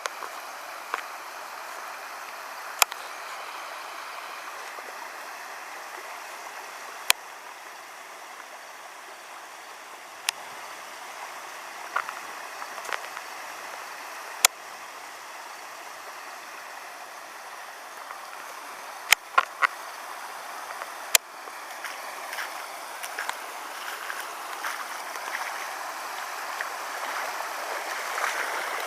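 Floodwater rushing steadily, with a scattering of sharp clicks and taps. The flow grows louder and more gurgling in the last third.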